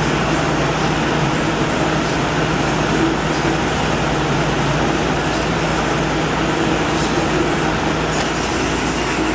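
Living room air conditioner running on high: a steady rush of air from the fan over a constant low hum from the running compressor.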